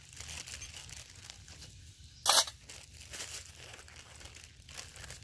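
Clear plastic bag crinkling and rustling as hands rummage in it, with one short, much louder crackle a little over two seconds in.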